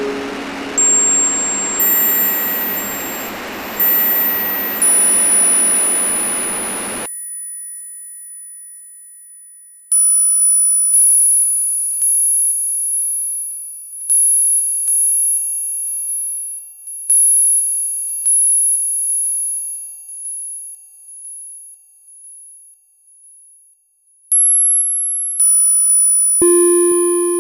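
Experimental electronic noise music. A dense hiss with piercing high sine tones cuts off about seven seconds in. What is left is sparse, very high-pitched electronic tones, struck roughly once a second and fading away, and lower synthesizer tones come in near the end.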